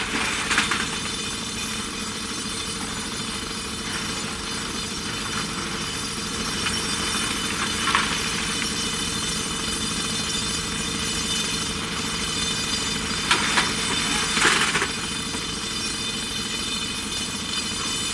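JCB 3DX Super backhoe loader's diesel engine running steadily as the backhoe works. Stone clatters into the dump truck's steel bed as the bucket tips its load just after the start, with further short clatters of stone later, the busiest about three-quarters through.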